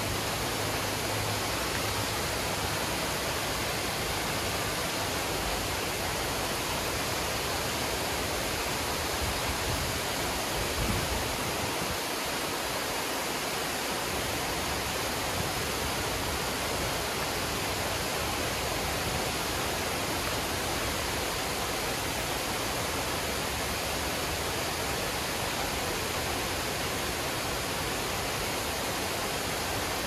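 Water pouring over a low dam's spillway into a brook, a steady, even rush of falling water.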